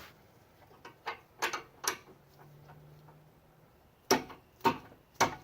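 Hand tools on a front sway bar link: a few light metallic clicks, then three sharp metal knocks about half a second apart as the link is worked loose.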